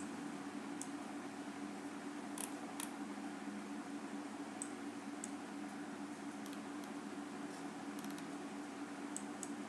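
Scattered light clicks of a computer mouse and its scroll wheel being worked, over a steady low hum.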